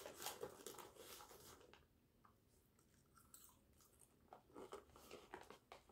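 Faint chewing of popcorn: soft crunches during the first second or so and again near the end, nearly silent in between.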